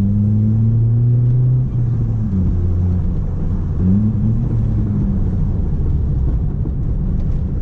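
Chevrolet Corsa 1.4 four-cylinder engine running through an aftermarket sport exhaust with its silencer insert removed, pulling under acceleration. Its pitch climbs, drops with a brief dip in loudness a little under two seconds in, and rises again around four seconds in before settling.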